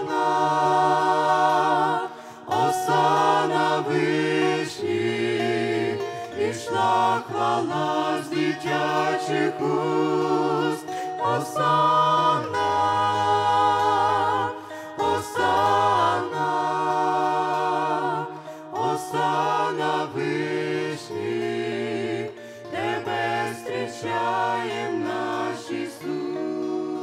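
A mixed group of women's and men's voices singing a Ukrainian Christian song in harmony through microphones, in phrases of a few seconds, over a steady low part.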